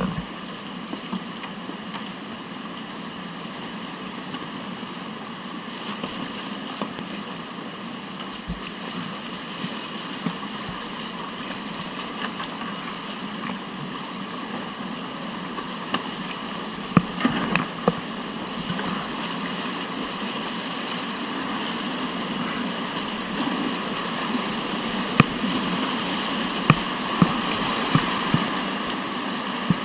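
Rushing whitewater of a mountain river rapid, a steady noise that grows slowly louder, with a few sharp knocks about halfway through and several more near the end.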